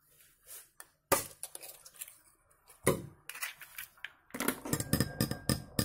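An egg being knocked against a glass bowl and cracked into it: two sharp knocks, about a second in and near three seconds, then a quick run of clinks and crackles of shell and glass near the end.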